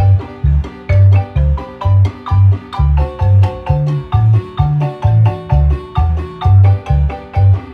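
Guatemalan marimba music: many quick mallet strikes on the wooden bars in the upper and middle range over strong low bass notes pulsing about twice a second.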